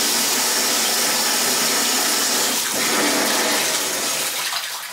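Bathtub faucet running with a steady rush of water into the tub while a newly installed replacement valve stem is tested; the rush dies away near the end.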